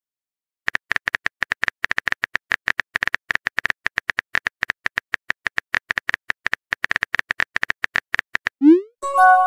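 Rapid key-click sounds from a phone texting app, one tap per letter as a message is typed. Near the end a short rising swoosh and a bright chime: the message-sent sound.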